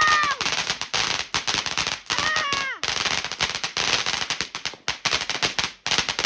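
A firework barrage going off with a rapid, continuous run of crackling bangs, several a second, with brief breaks. Two short falling whistle-like tones cut through it, just after the start and about two and a half seconds in.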